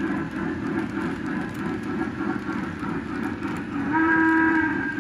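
Lionel O-gauge freight cars and caboose rolling past on three-rail track: a steady rumble and clatter of wheels. About four seconds in, a short chord-like whistle tone of several pitches sounds for under a second.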